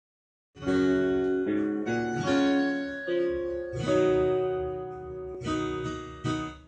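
Song intro played as backing music: acoustic guitar chords with a keyboard underneath, changing chord every half second to a second, starting about half a second in after silence.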